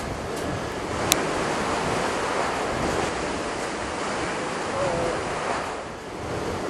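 Surf washing onto a beach, with wind on the microphone. A single sharp click about a second in.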